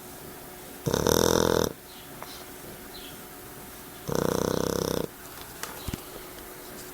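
Shar-pei puppy snoring: two loud snores, each just under a second long, about three seconds apart.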